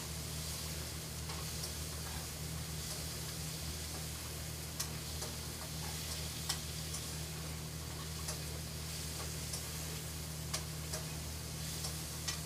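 Steady low electrical hum with a constant hiss, and a few faint clicks scattered through it.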